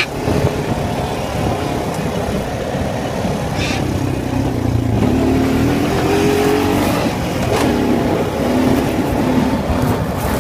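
Four-wheeler (ATV) engine running while being ridden, with the engine pitch shifting up a little between about five and seven seconds in.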